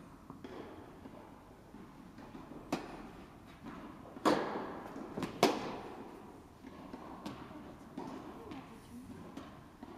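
Tennis ball being struck by rackets during a rally, sharp pops that echo through a large indoor hall. The two loudest strikes come near the middle, about a second apart, with fainter hits and bounces around them.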